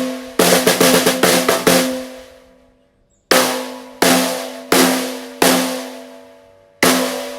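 Peace wooden-shell snare drum being played: a quick flurry of strokes about half a second in that rings out by about three seconds, then five single strokes under a second apart, each ringing with a clear tone.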